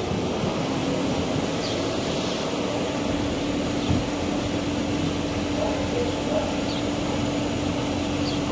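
Steady engine drone over outdoor background noise, with a steady hum that sets in about two and a half seconds in, and a single soft thump about four seconds in.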